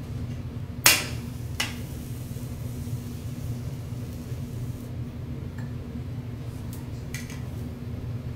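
A metal teppanyaki spatula strikes with a sharp, ringing clang about a second in, then a lighter clink just after, over a steady low hum.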